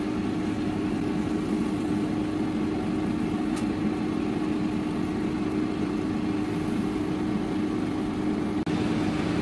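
Ninja air fryer running mid-cook, its fan blowing with a steady, unchanging hum. The sound dips briefly near the end.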